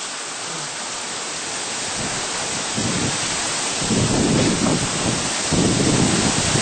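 Hurricane-force wind and heavy rain, a dense steady rushing, with strong gusts rumbling up from about three seconds in.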